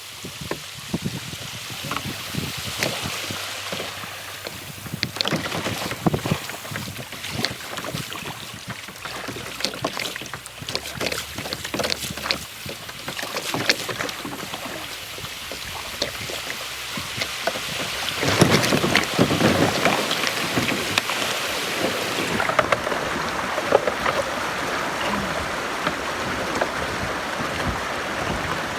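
Kayak moving on a river, with irregular water splashes and rushing water around the boat and some wind on the microphone. It gets louder for a few seconds past the middle.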